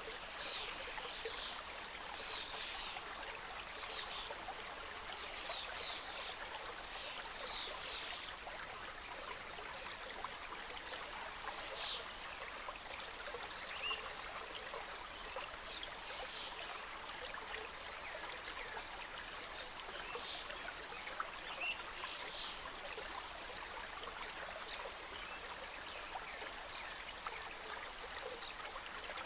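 Mountain stream cascading over rocks: a steady rush of flowing water with small trickles and splashes.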